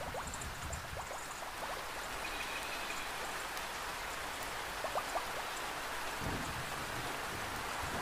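Steady rain falling on garden foliage, with a few individual drops standing out about five seconds in. A low rumble of thunder comes in near the end.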